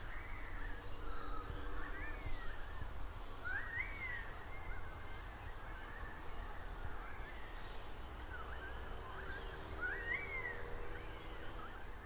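Birds calling outdoors: a short call that rises and falls is repeated every second or two, mostly in the first few seconds and again near the end, with other chirps among them. A steady low rumble of wind noise on the recorder's microphone lies beneath.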